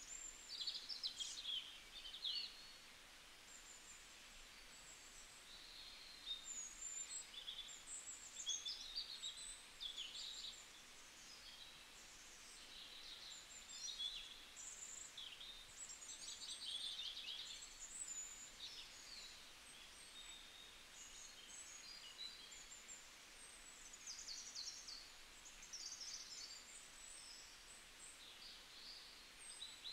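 Faint birdsong ambience: many small birds chirping and twittering in short, high, overlapping calls and trills over a soft steady hiss.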